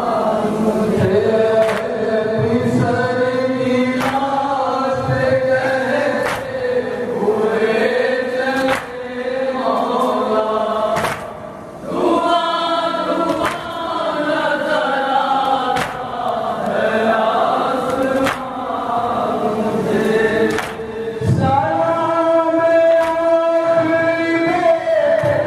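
A group of men chanting a noha, a Shia mourning lament, together, with a lead voice and the crowd answering. Sharp slaps of hands on chests (matam) keep a steady beat under the chant.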